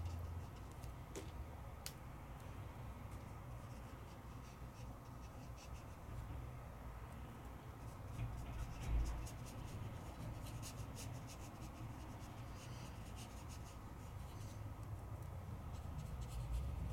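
Faint scratchy strokes and light taps of a wet paintbrush working watercolour paint on paper, over a low steady hum, with a soft bump about nine seconds in.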